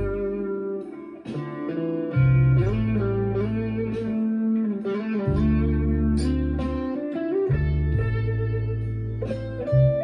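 Chapman ML1 Standard Traditional electric guitar played through a Marshall MG15CFX amp with a Behringer vintage overdrive pedal, in a riff that alternates long held low notes with higher chords and single notes.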